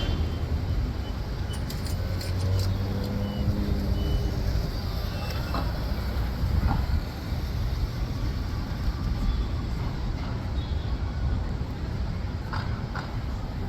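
City street traffic during rush hour: a steady rumble of cars, buses and trucks, with a few short tones over it.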